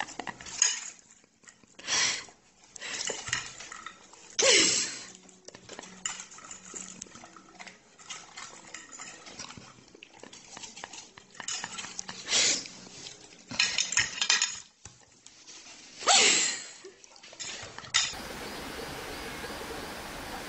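A fork clinking and scraping on a ceramic plate in short separate bursts while food is eaten at a table, a few of the sounds louder than the rest. About 18 seconds in, a steady even hiss takes over.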